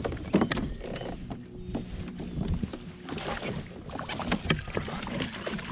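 Splashing and short knocks and clicks around a kayak while a hooked bass is fought to the boat.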